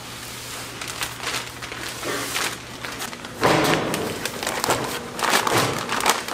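Bakery workroom noise: scattered knocks and clicks over a steady low hum, growing louder and busier from about three and a half seconds in.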